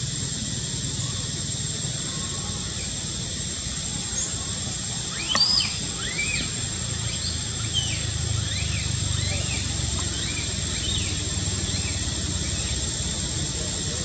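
A baby monkey's short, high-pitched cries, many in a row, each rising and falling quickly, starting about four seconds in. A constant high whine and steady background noise run underneath.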